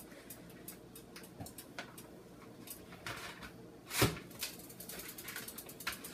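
Kitchen handling sounds as cooked hamburger patties are cut up and loaded into a food chopper: scattered light taps and clicks, with one louder knock about four seconds in.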